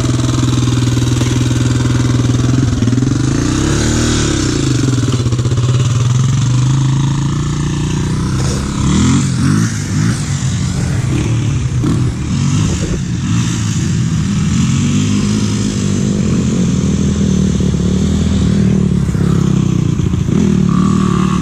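Several single-cylinder four-stroke dirt bike and quad engines running. One keeps a steady idle close by, while others rev up and down as they ride around.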